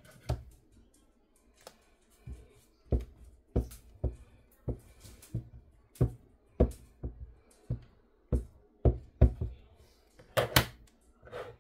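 Ink pad tapped again and again onto a clear stamp mounted on an acrylic stamp block to ink it: sharp plastic knocks, one or two a second, the loudest coming near the end.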